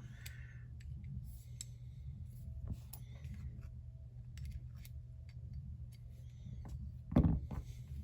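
Light metal clicks and taps as the parts of a MK18 bolt carrier group are handled during disassembly, with one louder knock about seven seconds in, over a steady low hum.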